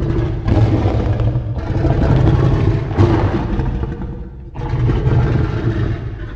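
Kaiju monster sound effect: a loud, low, rumbling growl with a rough, grinding edge, swelling in three surges and easing off near the end.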